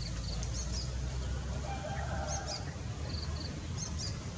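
Birds chirping in short, high notes, repeated in small groups every second or so, over a steady low rumble.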